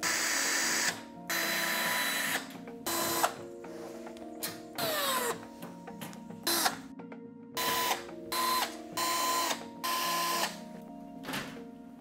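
Electric screwdriver running in short bursts, each under about a second, as it backs out the screws holding a washer-dryer's sheet-metal side panel, with background music underneath.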